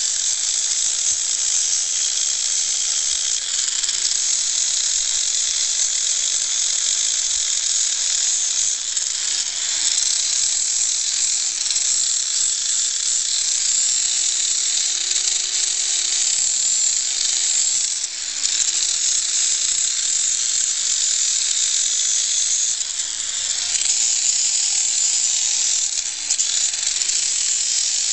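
Electric grinder sanding down a horse's hoof wall: a steady, high-pitched grinding hiss, with the motor's pitch wavering as it is pressed into the hoof and eased off.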